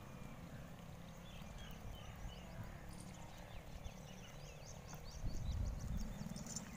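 Outdoor field ambience: a steady run of short, high-pitched chirps over a low rumble that grows heavier for about a second near the five-second mark.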